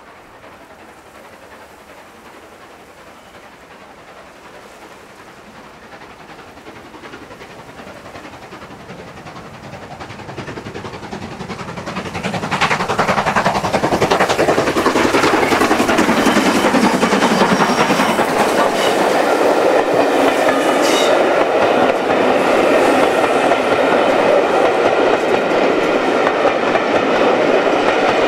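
LNER K1 class 2-6-0 steam locomotive No. 62005 approaching, growing steadily louder, and passing close by a little under halfway through. Its train of coaches then rolls past, its wheels clattering over the rail joints.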